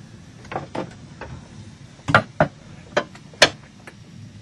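Irregular knocks and clunks, the two loudest a little past two seconds and about three and a half seconds in. They come from the corner struts being taken out and the lifting cabin top of a traditional wooden Broads yacht being lowered.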